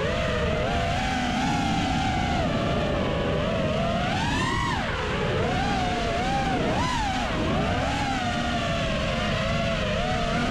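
A 5-inch FPV quadcopter's brushless motors and propellers whine, the pitch rising and falling with throttle and climbing sharply about four and a half seconds in. Wind rushes over the onboard camera's microphone.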